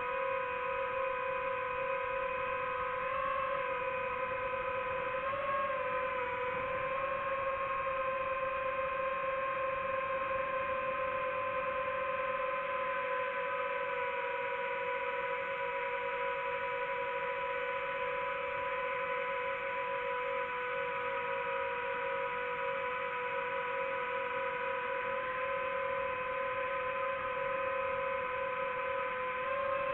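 DJI FPV drone's motors and Gemfan Hurricane 5236 propellers whining in flight at a steady pitch, with two short rises in pitch about three and five and a half seconds in.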